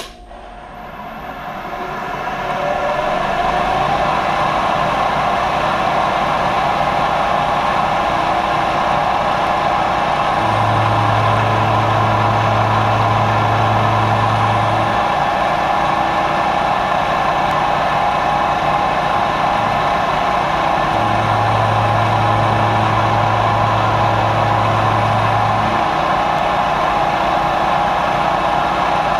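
Bridgeport variable-speed knee mill spinning up, its whine rising in pitch over the first few seconds, then running steadily while the end mill cuts the knobs on the pommel stock. A low hum comes in twice, for about four to five seconds each.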